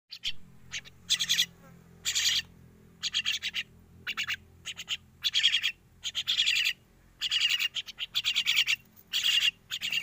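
Young crested mynas giving short, harsh, raspy calls over and over, some singly and some in quick runs.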